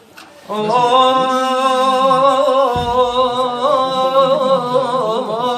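A man singing a mawwal, holding one long ornamented 'oh' vowel that wavers in pitch, coming in about half a second in.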